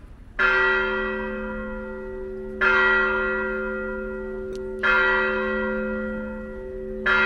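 Almería Cathedral's church bell tolling: four strikes a little over two seconds apart, each ringing on and slowly fading, with the bell's low hum carrying through between strikes.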